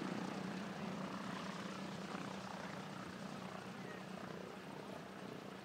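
Douglas C-47 Dakota's twin Pratt & Whitney R-1830 Twin Wasp radial engines running with propellers turning, a steady low drone on the ground that slowly gets quieter as the aircraft moves away.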